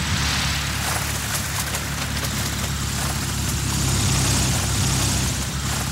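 A small ski-equipped bush plane's engine and propeller running steadily overhead, with a rushing hiss that swells and fades twice.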